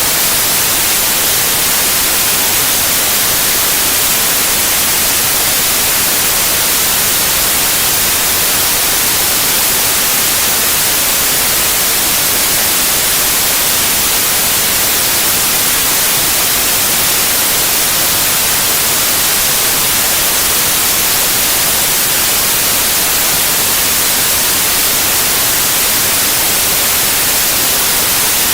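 Synthetic white noise: a loud, steady, even hiss, brightest in the treble, with no change throughout.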